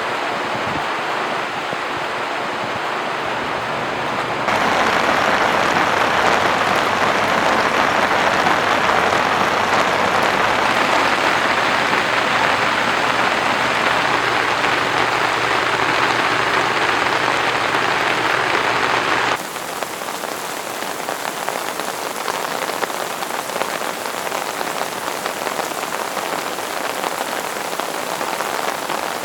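Heavy rain falling steadily. The sound changes abruptly twice: it gets louder and fuller about four and a half seconds in, then drops to a softer, thinner hiss about nineteen seconds in.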